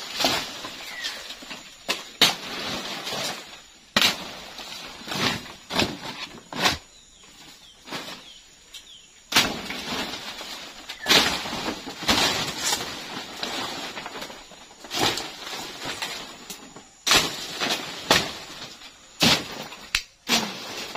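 Large leaves and undergrowth rustling and crackling as someone pushes through dense vegetation, with frequent sharp snaps of stems and stalks.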